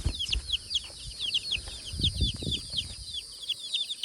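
Young chicks peeping constantly, many short high peeps that fall in pitch, several a second and overlapping. Low rumbling thumps come near the start and again about two seconds in.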